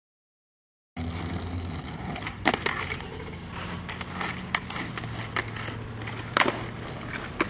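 Silence for about a second, then skateboard wheels rolling over asphalt, with several sharp clacks of the board hitting the ground.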